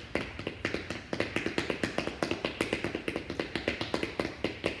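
Shoes tapping quickly and steadily on a hard floor, about five taps a second, from jogging in place while seated.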